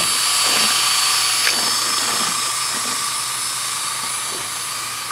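Cordless drill spinning a 3D-printed PLA propeller under water to drive an inflatable raft. A steady motor whine sits over a hissing churn, slowly fading.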